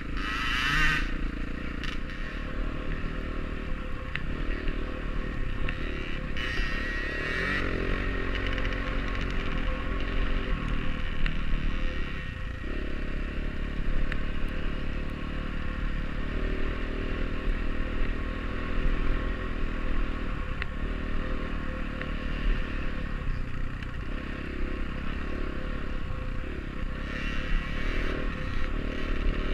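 Off-road dirt bike engine running as the bike rides a trail, its pitch rising and falling with the throttle, with short bursts of hiss about a second in, around seven seconds and near the end.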